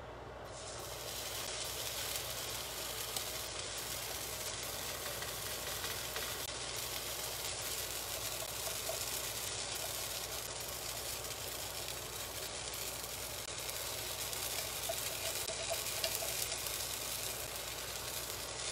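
Pancakes frying in a frying pan greased with cooking spray: a steady sizzle that comes up about half a second in and holds.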